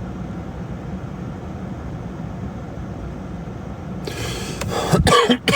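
A steady low hum. About four seconds in, a person's voice breaks in, loud and brief.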